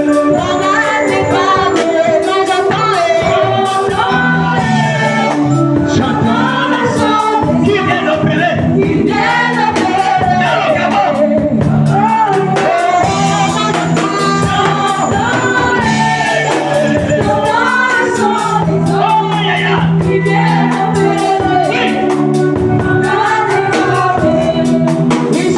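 Gospel music: singing with choir voices over a band with a steady beat.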